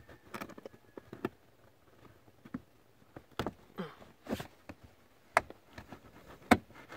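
Plastic lower dash trim panel on a Dodge Dart being worked loose by hand: scattered sharp clicks and knocks as its retaining clips are pulled, with short rubs of plastic against carpet and mat. The loudest clicks come near the end.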